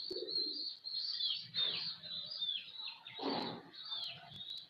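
Birds chirping: a run of high, short chirps that fall in pitch, several a second, with a few low pigeon coos under them, one louder about three and a half seconds in.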